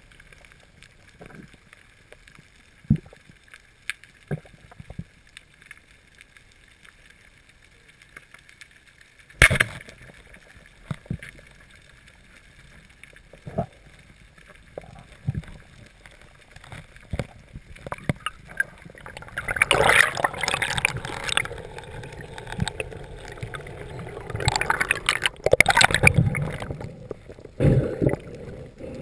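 Underwater noise heard through a camera housing: scattered clicks and knocks, one sharp knock about nine seconds in, then several seconds of rushing, gurgling water near the end.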